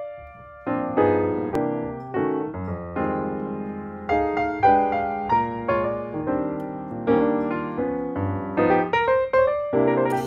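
Background piano music: a melody of quick notes over chords, with a brief lull just after the start.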